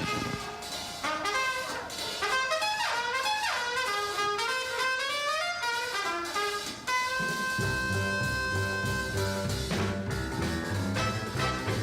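Jazzy brass band music: quick trumpet runs up and down, then a held brass chord and a bouncing swing beat with bass that comes in about seven seconds in.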